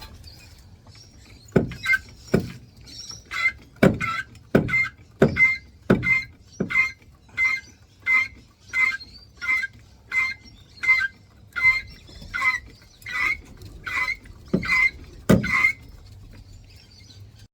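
Foot pump being worked to inflate a flat car tyre. Each stroke gives a squeak and a low thump, about one and a half strokes a second, starting about a second and a half in.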